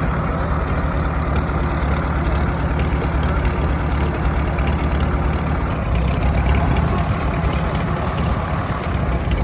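1947 Farmall H tractor's four-cylinder engine running steadily at a low, even pace.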